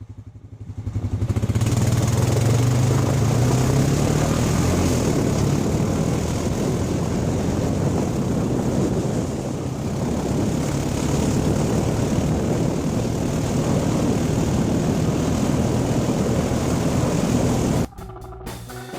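Honda Rancher ATV engine running steadily while riding along a snowy trail, pulling a sled, with a wash of rushing noise over the engine hum. It builds up in the first second or two and cuts off abruptly near the end.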